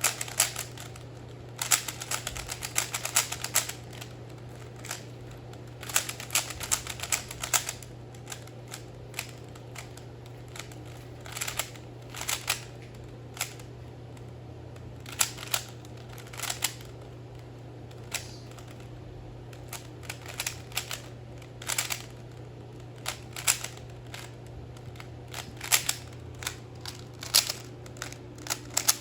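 Rubik's cube being turned quickly by hand: its layers click in rapid bursts with short pauses between them. A steady low hum runs underneath.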